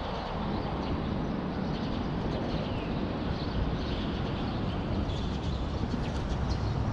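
Steady low rumble of traffic crossing the elevated highway bridge overhead.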